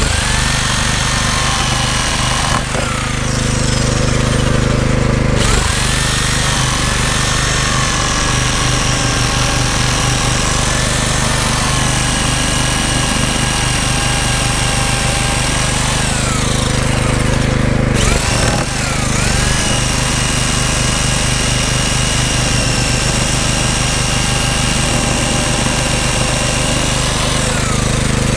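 Corded electric jigsaw cutting lengthwise through a thick wooden board, its motor whining steadily under the blade's rapid chatter. The pitch dips and picks up again a few times as the load on the blade changes.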